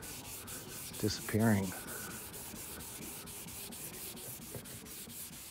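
Hand wet sanding of fresh paint on a car trunk lid with used 400-grit paper on a rubber block: quick, even back-and-forth rasping strokes, about four a second, cutting down paint runs.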